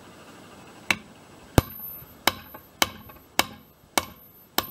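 Hammer blows on the pivot bolt of a Hawk 20 centreboard pivot strap resting over a socket in a bench vise: seven sharp strikes, a little under two a second, starting about a second in, each with a short metallic ring. The bolt is being driven out of its bushing.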